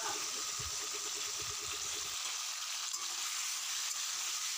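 Raw chicken pieces sizzling steadily in hot oil in a kadai as they start to fry.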